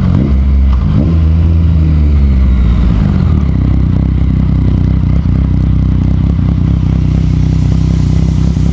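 Yamaha FZ-09 motorcycle's inline three-cylinder engine running at low speed, with a short rise in revs about a second in, then steady low-revving running as the bike rolls in to park.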